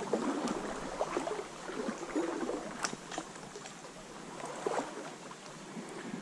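Shallow trout stream running and gurgling, with light irregular splashes.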